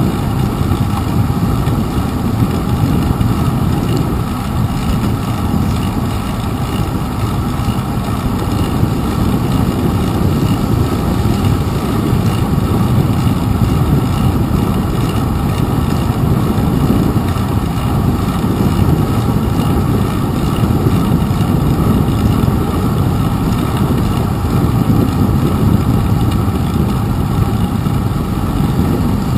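Steady low rumble of a bicycle ride picked up by a handlebar-mounted GoPro Hero 2: wind on the microphone mixed with tyre and road vibration on wet pavement.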